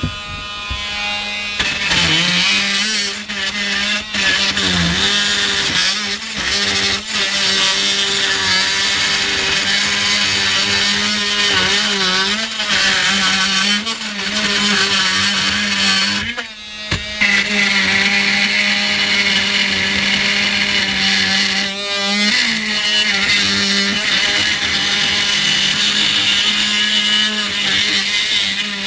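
Handheld cordless power cutter running while cutting, its motor pitch wavering under load. It starts up about two seconds in and stops briefly about sixteen seconds in before running on.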